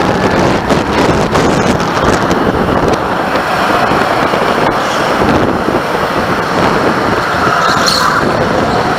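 Onboard sound of a go-kart driving on a track: the kart's motor running with wind rushing over the camera microphone, a steady loud noise.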